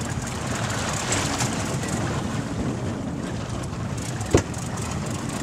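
Steady wind buffeting the microphone over water sloshing around a small fishing boat at sea, with one sharp knock about four seconds in.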